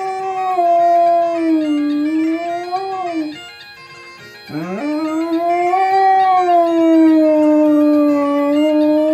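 A Scottish terrier howling along to bagpipe music playing on a television. One long wavering howl slides down and breaks off about three seconds in. A second howl starts about a second later with a quick upward swoop and is held on past the end, over the steady drone of the pipes.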